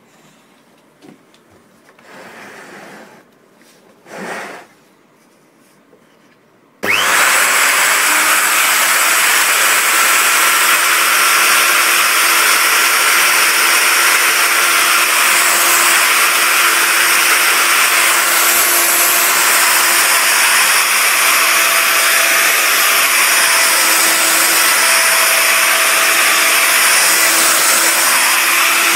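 Handheld electric router switched on about seven seconds in: a brief rising spin-up, then a loud, steady motor whine. Before it starts there are only a few soft handling sounds.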